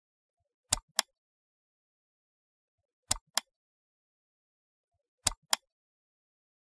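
Three quick double clicks, evenly spaced about two seconds apart, in otherwise dead silence: an edited-in mouse-click sound effect.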